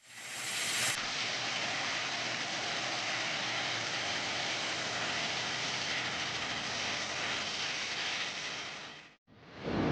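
Steady rushing noise of a Boeing 737-800 jet airliner's engines, cut off abruptly about nine seconds in; after a brief gap a louder, lower rumble begins.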